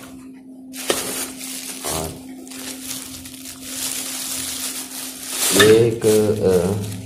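Plastic bags and gear rustling and crinkling as items are handled and pushed into a backpack, with a few sharp knocks. A short stretch of voice near the end.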